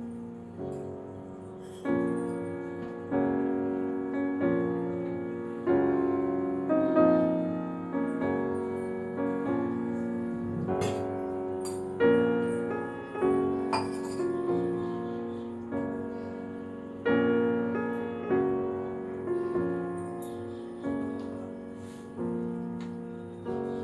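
Background piano music: chords struck roughly once a second, each fading before the next.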